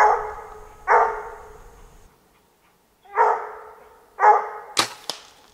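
Bluetick coonhound barking four times, each bark trailing off, as she bays at a squirrel up a tree. Two sharp clicks come near the end.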